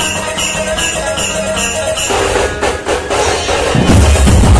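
Loud banjo party band music with percussion. It starts with a regular pattern of about four hits a second, shifts to a denser passage about two seconds in, and heavy deep drum beats come in near the end.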